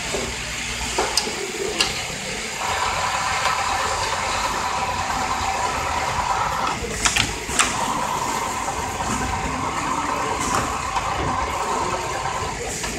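Richpeace automatic template sewing machine running, its sewing head and drive giving a steady mechanical hum. A steady whine sets in after about two seconds, and two sharp clicks come about seven seconds in.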